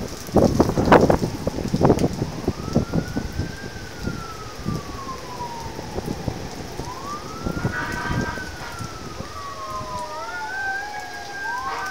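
Emergency vehicle sirens wailing in slow rising and falling sweeps, a second siren joining about two-thirds of the way through, over steady heavy rain. A burst of loud cracks and knocks fills the first couple of seconds.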